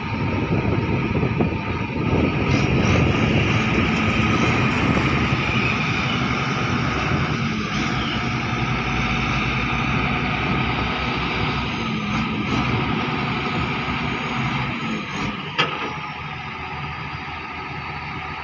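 Crawler bulldozer's diesel engine running hard on the tilted bed of a loading truck, growing louder about two seconds in and easing off near the end. One sharp metallic knock sounds about fifteen seconds in.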